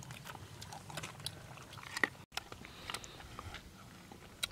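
Dogs chewing and biting at food, with many short, irregular wet clicks and smacks from their mouths.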